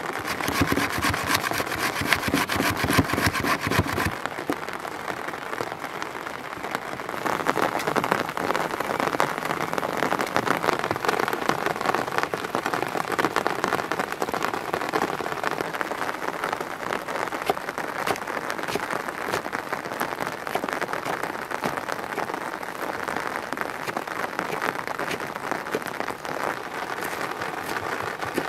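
Steady rain pattering throughout. For the first four seconds or so it is joined by a cucumber being scraped back and forth on a metal box grater against a wooden board.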